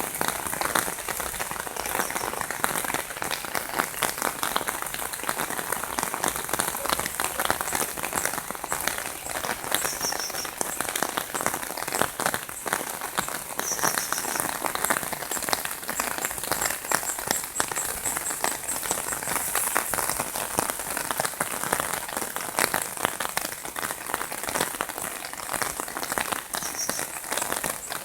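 Heavy rain pouring down: a dense, steady patter of drops striking a surface.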